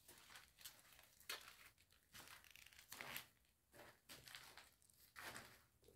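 Faint, irregular crunching of footsteps on rubble and broken brick, a few scattered steps in otherwise near silence.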